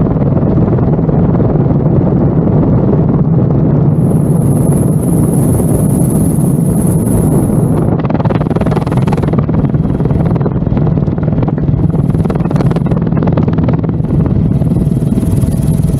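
Airbus H125 helicopter in flight, heard from on board: the rotor and single turboshaft engine make a loud, steady drone. A high turbine whine comes in about four seconds in and then drops in and out in shorter spells.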